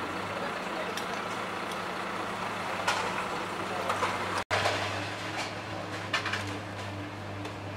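Heavy vehicle engine running at a steady low hum, with a few short knocks and clatters over it; the sound drops out for an instant just past halfway.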